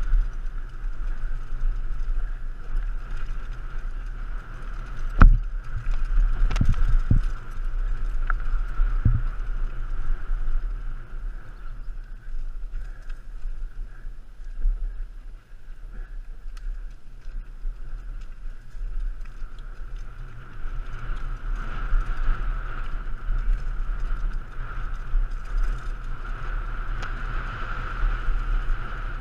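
Mountain bike descending a dirt singletrack at speed, heard from a helmet-mounted camera: wind rumble on the microphone, tyre and trail noise, and a steady high buzz underneath. A sharp knock about five seconds in and a few more jolts over the next few seconds as the bike hits bumps.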